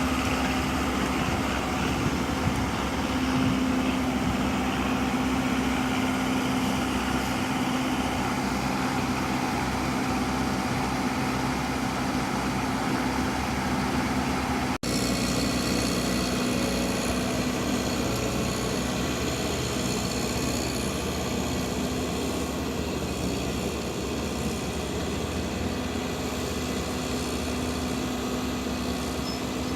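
A vehicle engine running steadily with an even hum, broken by a sudden brief dropout about halfway through.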